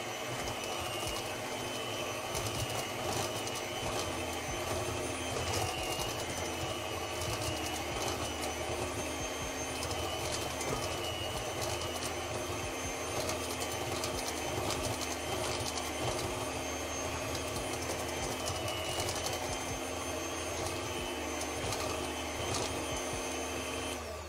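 Electric hand mixer running steadily, beating waffle batter, switched off near the end.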